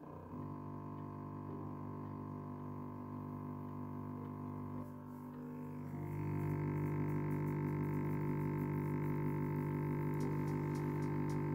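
Stepper motors of a homemade hot wire foam cutter, built from salvaged 3D printer parts, give a steady multi-tone hum as they drive the heated wire slowly up through a slab of pink extruded polystyrene. The hum gets louder, with a higher tone added, about six seconds in.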